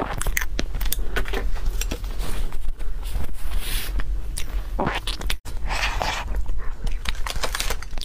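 Close-up eating and handling noises: a metal spoon scraping and clicking against a cupcake cup, with rustling of plastic gloves and a napkin, over a constant low hum.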